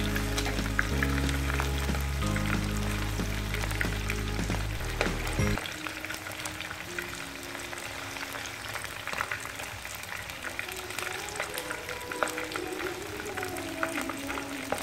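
Chicken pieces sizzling and crackling in hot oil in a nonstick frying pan, with small clicks of a metal utensil against the pan as the pieces are turned. Background music plays over it, its heavy bass notes stopping about five and a half seconds in.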